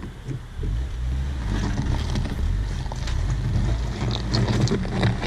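Ford EcoSport 4WD's engine revving hard under load as the car pulls itself out of soft sand where it had got stuck, tyres churning through gravel. The engine sound swells about half a second in and stays heavy, with scattered ticks on top.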